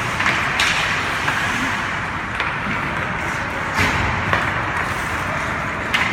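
Steady background noise of a hockey game, with several sharp knocks spread through it.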